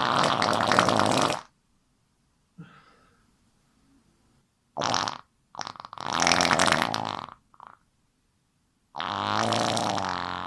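A run of separate, loud fart sounds with dead silence between them. Two are long, one ending about a second and a half in and one starting near the end, and there are a few shorter ones in the middle.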